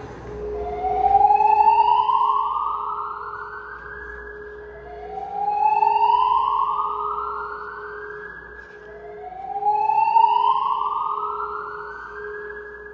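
Voice evacuation fire alarm sounding its slow whoop tone over the building's speakers: three rising sweeps, each climbing for about three and a half seconds and then cutting off, over a steady lower hum. It is the evacuation signal, set off by a sprinkler activation.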